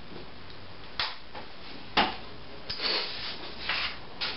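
Sheets of paper handled at a lectern: two sharp clicks about a second apart, then a few short rustles as a page is lifted and turned.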